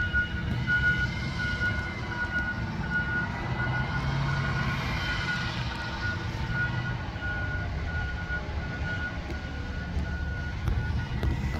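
Waste Management Amrep automated side-loader garbage truck running at a distance, a low steady engine hum with a repeated high beeping alarm over it.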